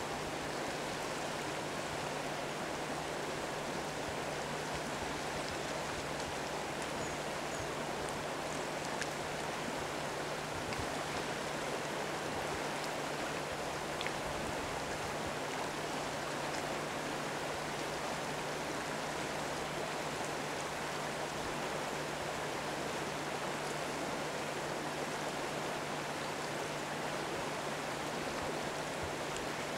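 Flowing river current, a steady rush of water, with a faint steady low hum underneath.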